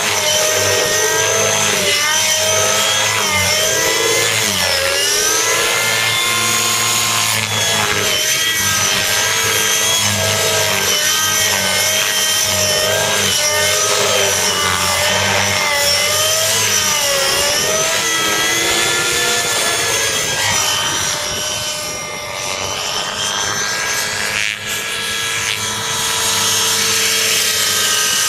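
Gaui NX4 nitro radio-control helicopter with a Gaui .37 two-stroke glow engine and muffler flying hard 3D aerobatics: the engine whine and rotor blade noise rise and fall in pitch with each manoeuvre. The sound dips for a few seconds about three quarters of the way through, then comes back to full loudness.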